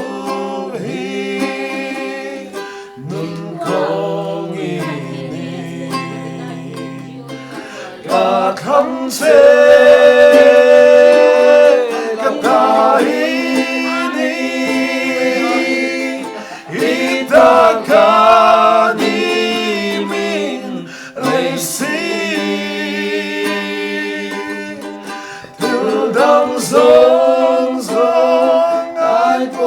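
Singing to a plucked-string accompaniment on ukulele or guitar, heard through a sound-check PA, the voice growing louder about eight seconds in.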